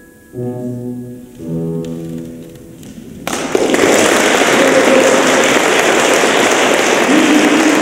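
The accompaniment ends the song on two sustained closing chords, then about three seconds in an audience breaks into applause that carries on steadily and loudly.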